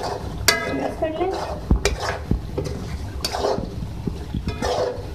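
Spatula scraping and knocking against a karahi (wok) as chicken curry is stirred: a series of sharp scrapes and knocks, some of them with a brief metallic ring.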